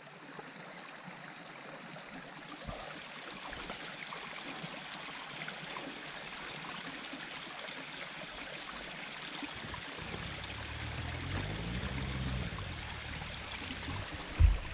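Steady rush of a small stream running over rocks. From about ten seconds in, a dirt bike engine runs low, its pitch rising and falling once. Near the end comes a short, loud low thump.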